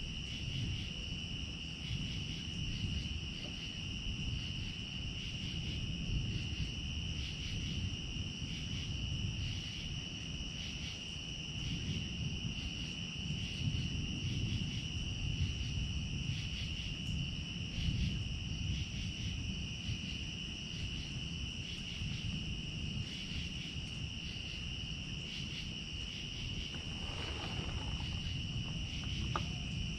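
Steady chorus of crickets, a continuous high trill pulsing evenly, over a constant low-pitched outdoor noise.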